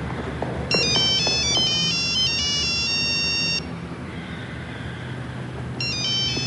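Mobile phone ringing with an electronic melody ringtone of quick high beeping notes: one ring of about three seconds, a pause of about two seconds, then it starts ringing again near the end.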